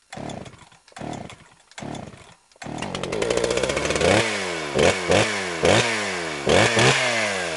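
Two-stroke chainsaw engine: three short bursts, then it catches and runs, revved in quick blips several times with the pitch falling back after each.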